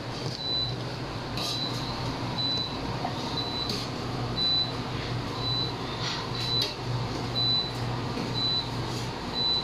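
A short, high-pitched electronic beep repeating about once a second over a steady low appliance hum, with a few light clicks and taps of plastic cups being handled.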